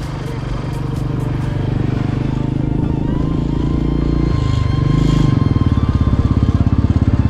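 Royal Enfield Bullet's single-cylinder engine running under way, a fast, even thump that grows louder and more distinctly pulsed about five seconds in.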